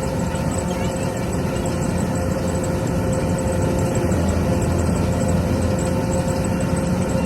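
A farm machine's engine running steadily: a low drone with a constant higher tone over it.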